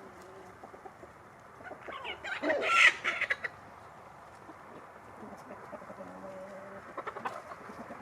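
Backyard hens and roosters clucking, with one loud call about two to three seconds in and a softer drawn-out call near the end.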